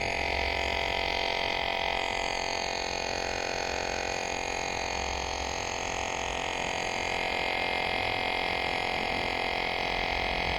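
Electric tyre inflator running steadily, inflating an e-bike tyre through its valve, with a constant buzzing drone.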